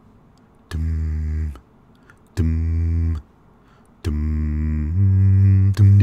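A man's low bass voice singing an a cappella bass line into a microphone: short held notes with gaps between them, a longer note that steps up in pitch partway through, and a new note starting near the end.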